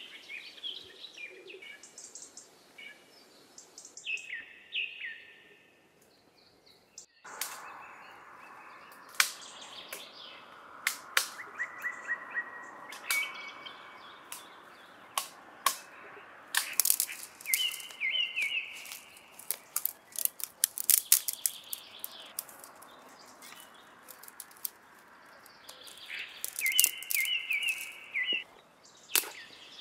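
Small forest birds chirping in short repeated phrases, with many sharp knocks and clicks from hand digging in dry, stony earth and stones being handled, thickest in the second half. The sound drops out briefly about seven seconds in.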